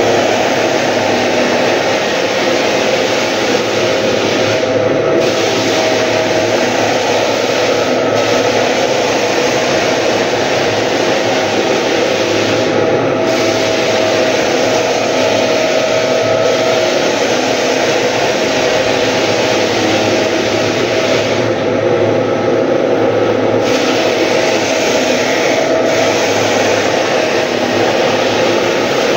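Drum floor sander running steadily on a wooden floor: a constant motor hum over the loud grinding hiss of the abrasive drum, the hiss dropping away briefly a few times.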